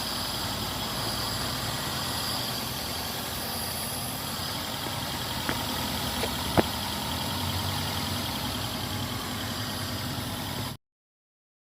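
Daihatsu petrol engine idling steadily, running again after a crank-but-no-start fault traced to a blown 10 A engine fuse. A single sharp click about six and a half seconds in, and the sound cuts off abruptly near the end.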